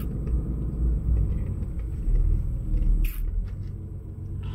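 Steady low rumble of a pickup truck driving: engine and road noise, with one short sharp click about three seconds in.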